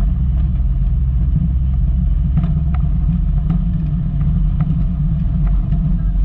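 Volkswagen Golf Mk2 driving over rough ground: a steady low rumble of engine and tyres, with scattered light knocks and clicks.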